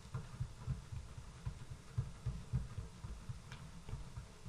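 Soft, irregular low thuds of hands pressing and patting yeast dough flat on a wooden tabletop.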